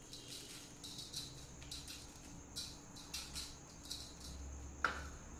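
Salt being sprinkled by hand over raw whole chickens: a run of about ten short, faint, irregular rustles, then a single sharp tap near the end.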